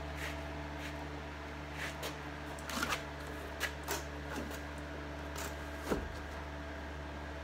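Vinyl roof covering being pulled back by hand from the glued roof to be repositioned, in several short rustling, peeling noises over a steady low hum.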